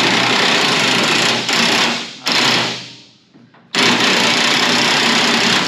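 Impact wrench hammering on a bolt in three bursts: a run of about two seconds, a short blip, then another run of about two seconds, each a loud, fast rattle.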